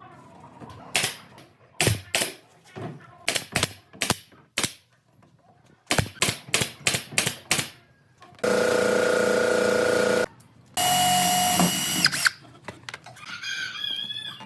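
Workshop sounds: a quick run of sharp knocks and taps on wood, then a power tool such as a drill running steadily twice, each time for a second or two.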